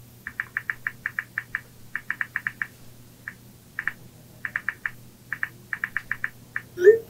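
iPhone keyboard clicks as a text message is typed, in quick runs of taps with short pauses between them. Near the end comes a louder, short whoosh that rises in pitch.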